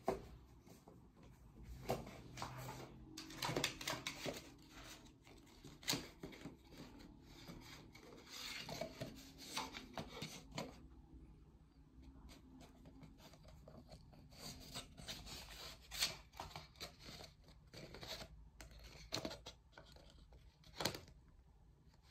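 Poodle chewing and gnawing a cardboard tube: irregular rubbing, scraping and tearing with sharp clicks scattered throughout.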